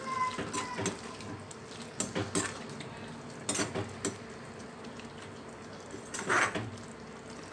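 A steel spatula stirring curry in a metal kadai, with scattered scrapes and clinks of metal on the pan. A short ringing clink comes near the start, and the loudest scrape comes about six seconds in.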